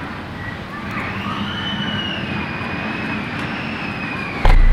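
A distant siren wailing, its pitch rising about a second in, wavering, then falling back. Near the end a much louder low hum cuts in suddenly.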